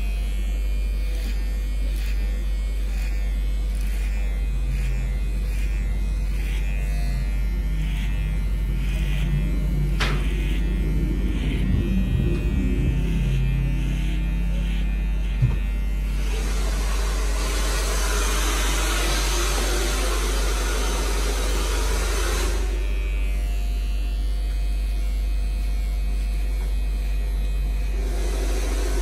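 Cordless hair clipper buzzing steadily as it is run over a comb, cutting hair on the side of the head. A louder hissing stretch lasts about six seconds in the middle, and there is a single sharp click just before it.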